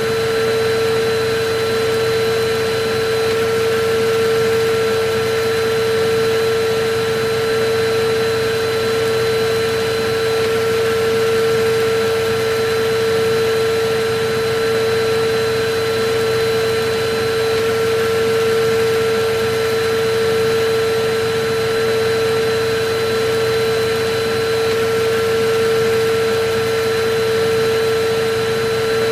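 Electric vacuum cleaner running steadily: a constant whine over an even rush of air, with no change in pitch or level.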